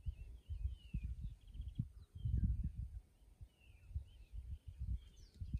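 Wild birds chirping and calling, with short gliding notes and a quick trill about two seconds in, over irregular low buffeting on the microphone.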